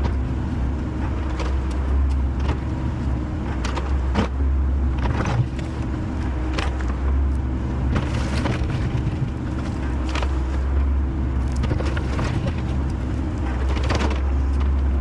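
Diesel engine of a tracked excavator running steadily under load while it digs a trench, with scattered knocks and scrapes through it.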